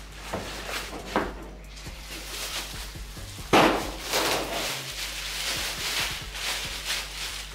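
Unpacking a stainless steel work table: a couple of knocks as the steel panels and cardboard are handled, then about halfway through a loud rip followed by continuous crinkling as the clear plastic wrap is pulled off and bunched up.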